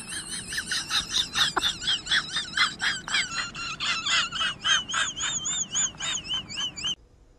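Husky giving a rapid string of high-pitched squeaky yelps, about four a second, each wavering up and down in pitch; the calls cut off suddenly near the end.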